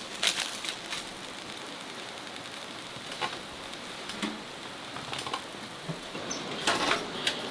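Firewood burning in a wood stove: scattered sharp crackles and pops over a steady hiss, with a cluster of pops near the end.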